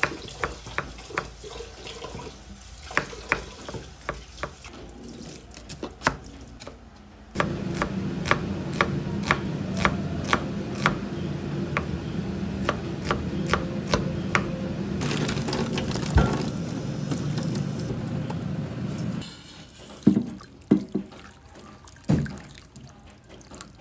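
Chef's knife chopping on a wooden cutting board, sharp knocks of the blade. About seven seconds in, a kitchen tap starts running into the sink, a steady rush with the knocks still over it, and stops after about twelve seconds; a few more knocks follow.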